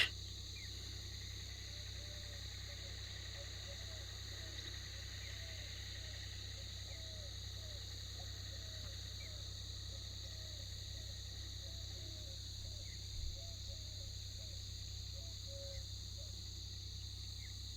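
A steady outdoor insect chorus of crickets with a continuous high drone, and many faint short chirping calls scattered through it. There is a sharp click at the very start and a low thump about 13 seconds in.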